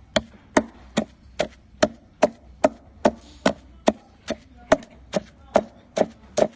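Knife chopping on a wooden cutting board in an even, steady rhythm of about two and a half strokes a second.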